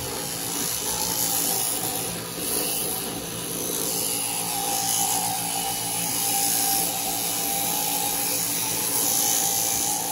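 Electric sheep-shearing handpiece running steadily as its cutter shears the fleece off a ram.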